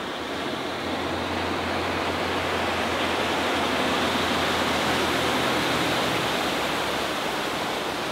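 A Mariah SC21 cuddy sportsboat running at speed through a turn close by: a loud rush of water and wind over a low, steady engine drone. It grows louder toward the middle as the boat comes nearest, and the drone drops away near the end.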